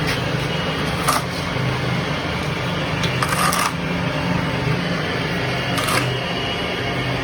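Manure solid-liquid separator machine running: a steady low motor hum with a few short rattles and clatters, about a second in, around three and a half seconds in and near six seconds.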